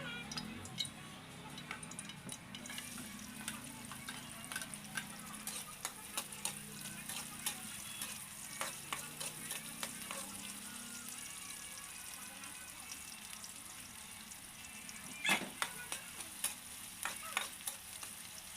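Food frying in hot oil in a pan: a steady sizzle that strengthens about three seconds in, with many small crackles and pops and a few louder clicks, the loudest about fifteen seconds in.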